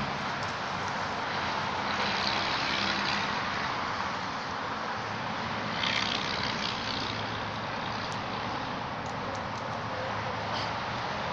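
Steady engine-like noise, as from a motor vehicle: a continuous hiss over a low hum. It gets briefly brighter and louder about two seconds in and again about six seconds in.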